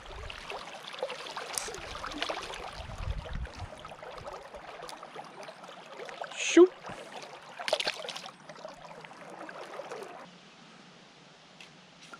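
River water splashing and trickling around a small hooked fish as it is brought to hand and held at the surface, with a couple of sharp splashes a little past halfway.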